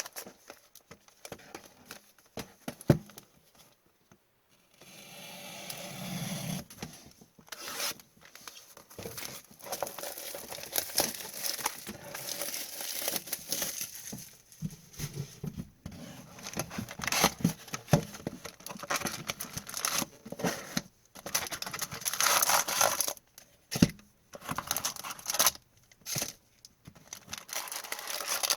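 Plastic wrapping on a sealed box of hockey trading cards being torn and crinkled open by hand, with irregular crackling and a few sharp clicks as the packaging is handled.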